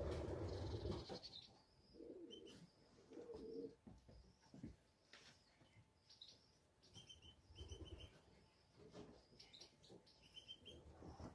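Faint pigeon cooing with short, high bird chirps coming again and again, after a brief low rustle at the start.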